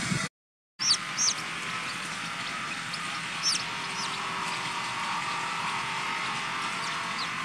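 Baby chicks peeping: a few short, high chirps about a second in, again a couple of seconds later and once near the end, over a steady hiss. The sound drops out for half a second at the start.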